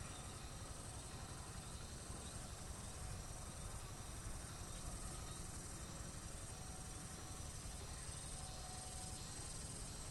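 Faint trackside field ambience: insects chirring steadily in a high band, over a low, steady background rumble.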